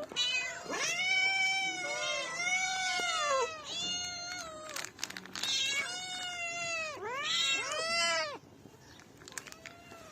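Cats meowing over and over, drawn-out calls that rise and fall in pitch, several overlapping one another; the calling stops a little over eight seconds in.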